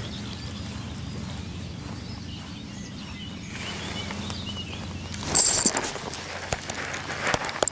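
Riverside ambience with a low steady hum and a few bird calls. About five seconds in comes a sudden loud rush of noise as an asp strikes the lure with a splash, followed by irregular sharp clicks as the angler strikes back.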